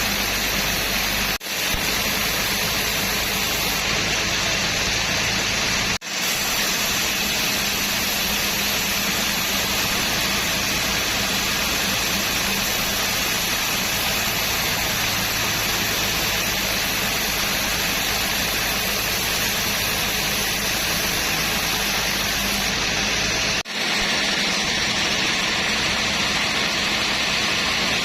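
Sawmill machinery running with a loud, steady noise and a low hum, broken by three brief dropouts.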